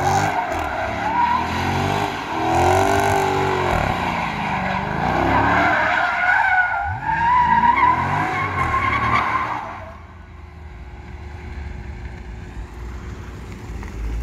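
Dodge Challenger 392's 6.4-litre HEMI V8 revving up and down through a donut, the rear tyres squealing as they spin. About ten seconds in the squealing stops and the engine drops to a quieter, lower running.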